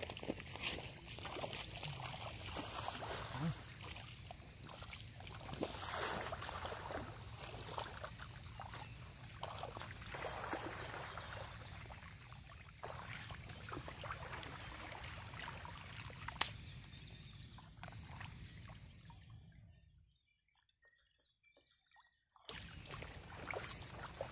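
Shallow pond water swishing and splashing as a hand scoop net is swept through it and lifted out by someone wading, in irregular splashes over a steady low rumble. The sound cuts out for about two seconds near the end.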